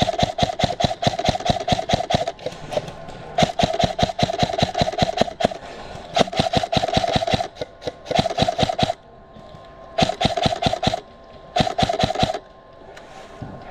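Krytac Trident MKII CRB-M airsoft electric rifle firing six full-auto bursts: a rapid, even clatter of shots over the whine of its gearbox motor, with short pauses between bursts.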